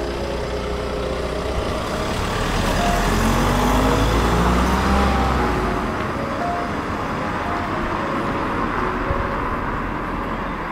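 A car driving past close by and pulling away, its engine and tyre noise swelling to a peak about four seconds in and then fading. Light background music with short held notes plays along.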